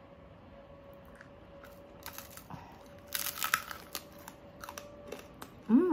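Crispy skin of baked pork pata (pork knuckle) crackling as it is bitten: a loud cluster of crunches about three seconds in, then scattered smaller crunches and chewing clicks. Near the end comes a short vocal sound from the eater that rises and then falls in pitch.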